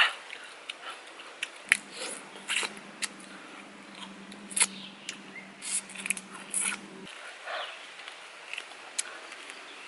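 A person eating with bare hands: chewing with wet smacks and sharp clicks of the mouth and of food being pulled apart, irregular throughout. A steady low hum starts about two seconds in and cuts off suddenly around seven seconds.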